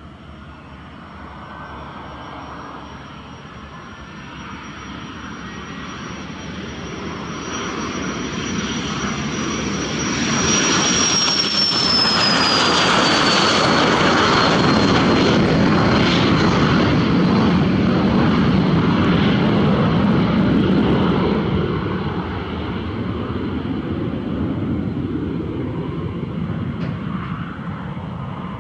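Light twin-turbofan business jet taking off at full power. The turbine whine and rumble build as it rolls down the runway and peak as it lifts off and passes, with the high whine dropping in pitch about halfway through. The sound then fades as the jet climbs away.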